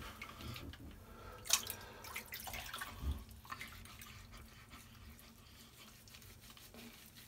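Faint water splashing and dripping in a bathroom sink as a newborn is washed with a washcloth, with a few small splashes about one and a half and three seconds in.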